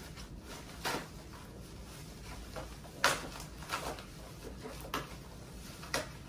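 Plastic packaging wrap being handled and pulled off, rustling and crinkling in irregular bursts, the loudest about three seconds in.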